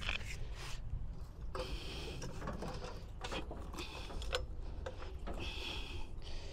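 Hand tools being handled: scattered light metal clicks and rattles with a few short scraping sounds.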